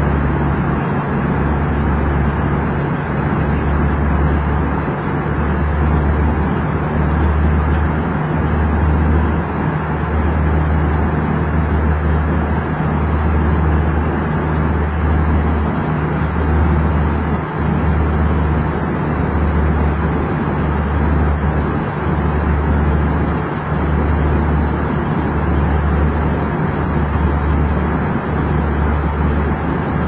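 Airliner cabin noise in flight: a steady rush of air with a low engine hum that pulses regularly, about once a second.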